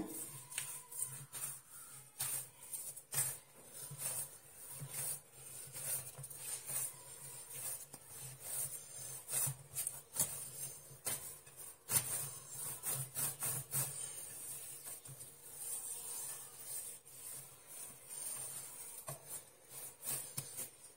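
Hands kneading a soft dough of flour, egg, salt and water in a glazed earthenware dish: irregular rubbing, pressing and dragging sounds as the dough is worked against the clay. A faint steady hum underneath.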